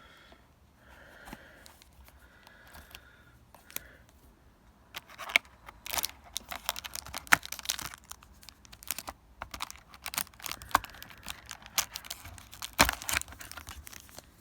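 Plastic wrapping crinkling and tearing as it is pulled off a packaged box, in a fast, irregular run of sharp crackles that starts about five seconds in.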